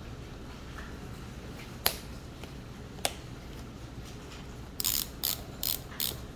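BOA lacing dial ratcheting as it is turned: two single clicks, then four quick bursts of clicks in the last second and a half.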